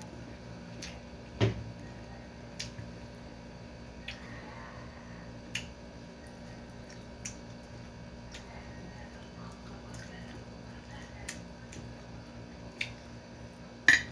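Close-up eating sounds: short, scattered mouth clicks and smacks from chewing, with light taps of a spoon and fork on a plate, the sharpest click coming just before the end. A faint steady hum sits under them.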